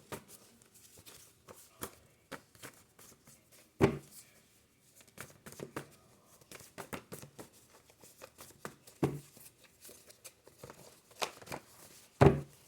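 A deck of oracle cards being shuffled and handled: a scatter of quick, faint card clicks and rustles, with two louder taps, about four seconds in and near the end.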